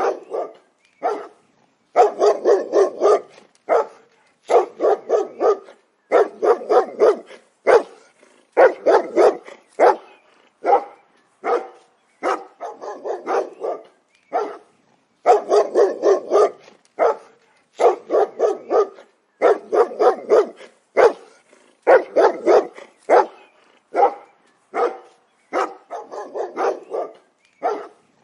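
A dog barking in quick runs of several barks each, the runs following one another every second or two with short pauses between.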